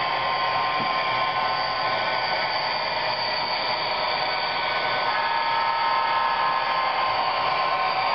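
Steady whirring hiss of model trains running on a layout, with several steady whines laid over it. A few new whines join about five seconds in.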